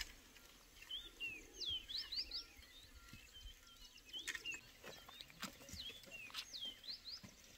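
Birds chirping in quick runs of short, curving whistled notes, with scattered soft clicks and rustles from footsteps and firewood branches dragging along a dirt path.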